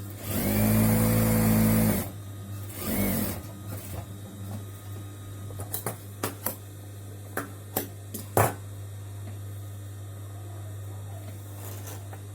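Electric sewing machine stitching in a run of about a second and a half, then a second short burst. Several sharp clicks and a tap follow over a steady low mains hum.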